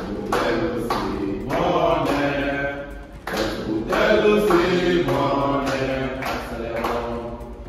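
A small group of men singing together in unison, with hand claps keeping a steady beat.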